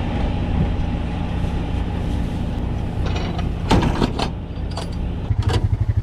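Engine running steadily with a few clattering knocks near the middle. About five seconds in, a louder, fast, even pulsing engine note takes over.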